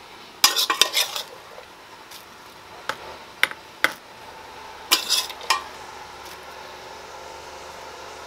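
A large metal spoon clinking and scraping against dishes as diced meat and vegetables are spooned into a loaf tin. There are two short bursts of clatter, about half a second in and about five seconds in, with a few single clinks between.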